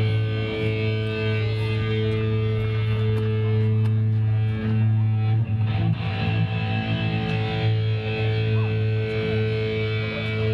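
Electric guitar played through a stage amplifier, ringing out long held notes that shift partway through.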